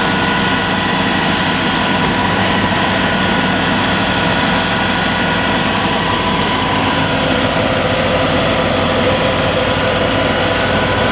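Kubota DC70 combine harvester's diesel engine running steadily, with a slight shift in its tone about seven seconds in.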